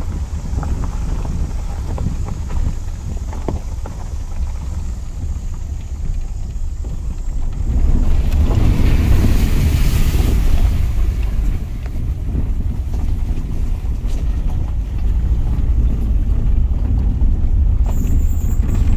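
Wind buffeting the microphone over the low rumble of a vehicle driving slowly on a gravel track. About eight seconds in a rushing splash of water builds for a few seconds as the vehicle fords a shallow creek.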